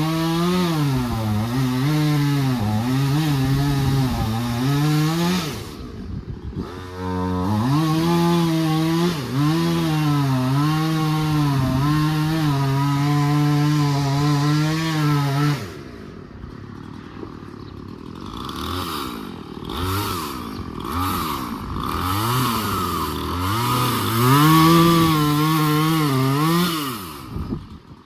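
Chainsaw cutting up tree wood, its engine speed dipping and rising as the chain bites in. It eases off briefly about six seconds in, runs quieter for a few seconds after about fifteen seconds, revs back up into cutting, and stops near the end.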